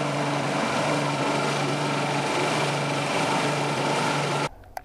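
Boat's outboard motor running steadily at speed, with wind and rushing water from the hull and wake; the sound cuts off abruptly near the end.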